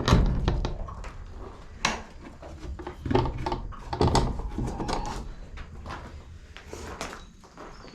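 Wooden chicken coop door being opened, a series of knocks, clicks and scrapes, loudest at the start and again about two, three and four seconds in.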